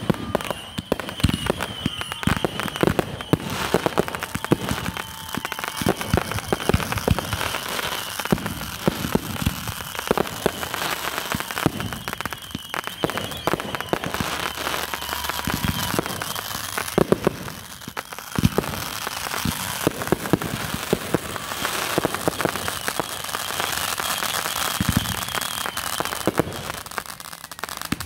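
Fireworks display: dense rapid crackling, pops and bangs from ground fountains and aerial shells bursting, going on without a break.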